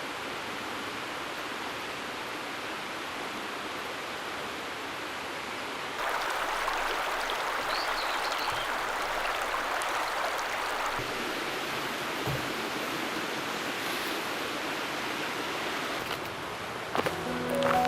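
Steady outdoor rushing noise, with no distinct events, that jumps abruptly louder and brighter about six seconds in. Music starts near the end.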